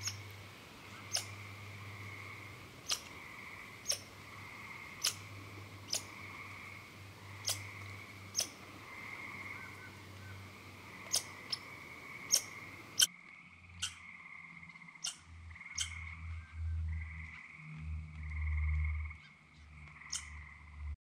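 Frogs calling in a chorus: a steady pulsing trill with sharp high peeps repeating about once a second. In the second half a few low rumbles come in.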